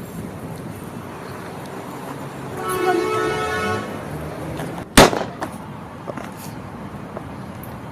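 A horn toots once, a held tone a little over a second long, over steady background noise. About five seconds in there is a single sharp bang, the loudest sound.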